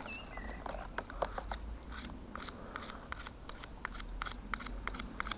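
A bunch of metal car and van keys clinking and rattling as they are handled, a string of irregular light clicks.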